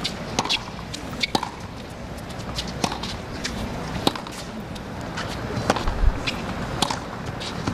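Tennis rally on a hard court: a series of sharp pops as rackets strike the ball, roughly every second or so, with lighter clicks of footwork between them.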